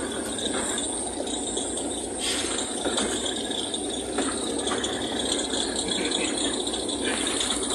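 Steady rattling street noise from vehicles running close by, with a faint high steady tone above it.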